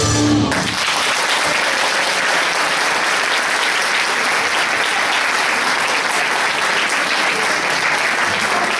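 The song's recorded music ends about half a second in, and an audience applauds steadily.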